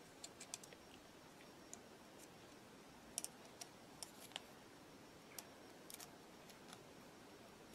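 Faint, scattered small clicks of a screwdriver tip against the metal pump housing as a new rubber seal is pressed into the throttle-shaft bore of a Simms diesel injector pump; otherwise near silence.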